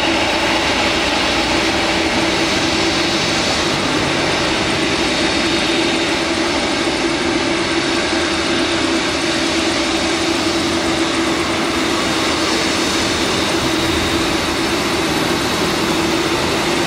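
Boeing 747 freighter's four jet engines running steadily at low power as it turns onto the runway: a steady jet noise with a constant whining tone.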